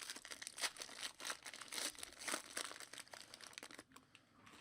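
Plastic trading-card pack wrappers crinkling and crackling as they are handled and torn open, in a dense irregular run that thins out near the end.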